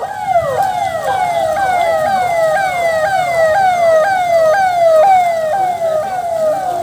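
Electronic police siren on a convoy escort vehicle, repeating a quick falling sweep about three times a second.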